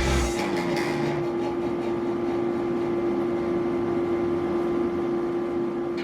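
Steady electric-motor hum of shop machinery with one constant tone, after rock music cuts off right at the start; a few light clicks in the first second.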